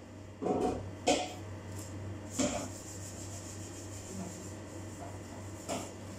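A few short rubbing and scraping handling noises as a large enamel mixing bowl full of minced meat is picked up and moved with gloved hands, over a steady low hum.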